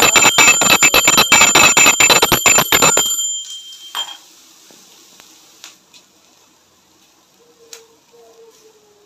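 Puja hand bell rung rapidly and continuously, stopping about three seconds in. Faint clinks of metal vessels follow.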